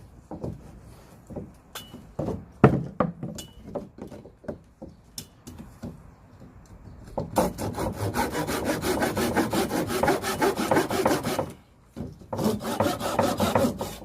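A saw cutting through a log of dead oak: a few seconds of scattered knocks as the wood is handled, then about four seconds of rapid, even sawing strokes, a short break, and sawing again near the end.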